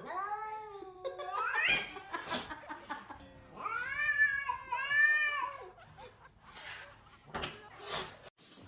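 A cat giving two long, drawn-out meows: the first rises in pitch at its end, and the second, about three and a half seconds in, rises and falls twice. A few short knocks come between and after the meows.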